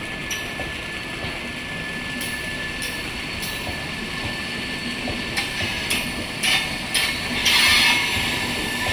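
MEMU local train's coaches rolling past on the rails, a steady rumble with a thin high wheel squeal held throughout. Past the halfway mark sharp clacks come from the wheels over rail joints, and the sound grows louder near the end.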